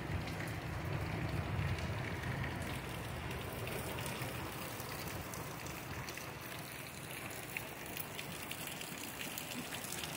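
Heavy rain falling steadily, a dense even hiss of drops, with a low rumble that fades away over the first two seconds or so.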